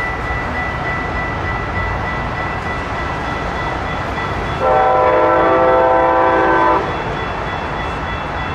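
Horn of an approaching Amtrak Pacific Surfliner train: one blast of about two seconds, several notes sounding together as a chord, starting about halfway through. A level-crossing warning bell rings steadily underneath.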